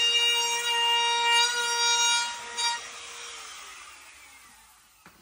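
Handheld power tool running at a steady high-pitched whine while trimming wood, then switched off about two and a half seconds in and winding down until it fades out.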